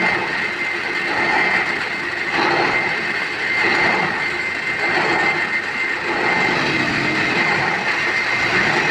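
Steady mechanical running noise with a constant high whine.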